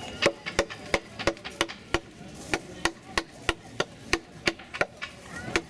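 Round wooden carver's mallet striking the handle of a carving gouge, cutting into a large block of wood: a steady run of sharp knocks, about three a second, with a short pause a little past two seconds in.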